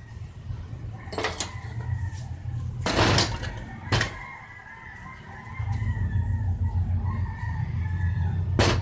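A rooster crowing in the background over a low steady rumble, with about four sharp metal clanks as a steel drum-brake shoe is handled on the workbench.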